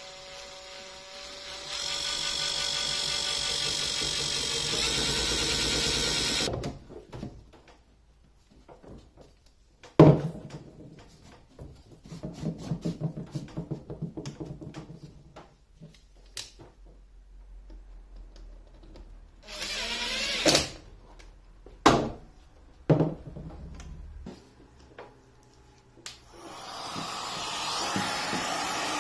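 Power drill running in bursts while driving screws into PVC dust-collection pipe fittings: a long steady run whose pitch rises slightly near its end, then knocks and rattles of the pipe being handled, with shorter runs later.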